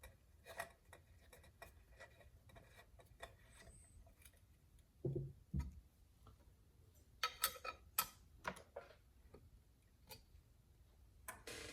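Scattered light clicks and small metallic taps of bolts and parts being handled and fitted to a chainsaw muffler cover, with two dull knocks about five seconds in and a quick run of clicks past the middle.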